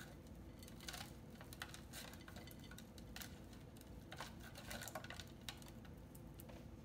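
Hands working loose potting soil: faint, scattered small crackles and clicks.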